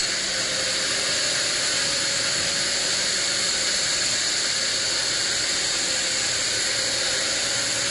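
Band sawmill running steadily: an even, high-pitched noise with a faint steady hum beneath it, unchanging throughout.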